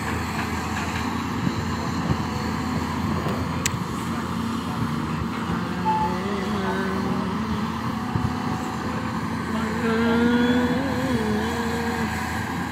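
LiuGong 939E excavator's diesel engine running under load while the long-reach boom and bucket work, its pitch wavering and the sound swelling louder about ten seconds in. A single sharp click about four seconds in.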